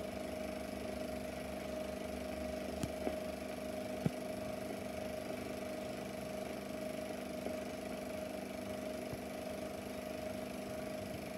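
Super 8 sound film projector running through a silent stretch of the soundtrack: a steady hum and hiss, with a few soft clicks about three and four seconds in.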